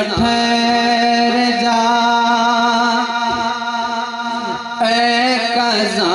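A man sings a Sindhi molood (naat) through a microphone. He holds long, steady notes over a constant drone and slides through gliding ornaments at the start and again near the end.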